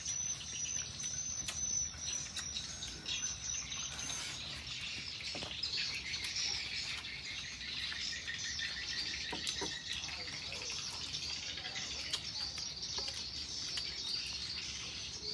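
Insects trilling and birds chirping: a steady high trill for the first few seconds, then a busier chorus of high chirps with a short run of evenly repeated chirps in the middle. A few faint clicks are heard now and then.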